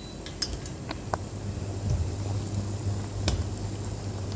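Whole chicken boiling in a big pot of water, with bubbling and scattered small pops and clicks as chopsticks prod the bird to test whether it is cooked, over a steady low hum.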